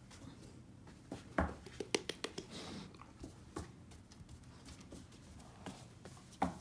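Scattered clicks and soft knocks of a Great Dane puppy's paws and claws on a hardwood floor as the dogs move about, with a few sharper knocks about a second and a half in and near the end.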